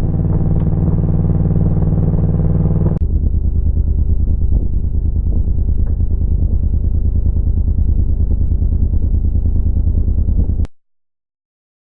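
Motorcycle engine running steadily. About three seconds in, the sound abruptly turns deeper and more muffled, and it cuts off suddenly near the end.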